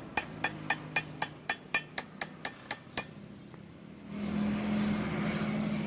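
Even, sharp clicking, about four clicks a second, which stops about three seconds in; about a second later a steady low hum with a hiss over it comes up and holds.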